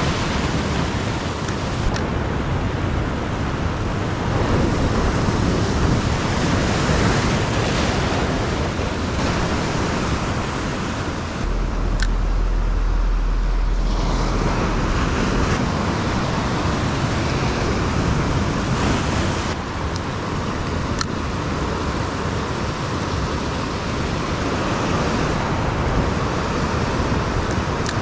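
Ocean surf breaking and washing over a rocky reef shoreline in a steady rush, with wind noise on the microphone. There is a heavy low rumble of wind buffeting about twelve seconds in.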